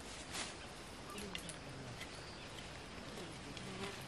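Leafy plants rustling, with small snaps as leaves and stems are picked by hand. A faint low voice is heard from about a second in.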